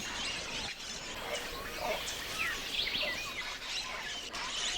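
Rainforest ambience: many short chirping and whistling bird calls, some rising and some falling, over a steady background hiss.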